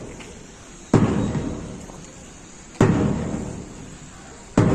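Loud, deep thuds struck at an even pace, one about every two seconds, three in all, each ringing out slowly before the next.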